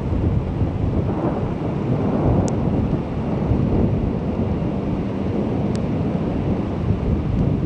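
A steady low rumble from the thunderstorm, swelling slightly about a second in, with a few faint sharp ticks.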